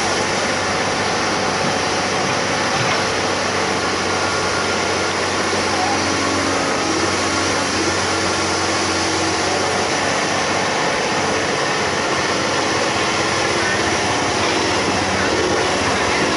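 Excavator's diesel engine running steadily, a constant unbroken drone.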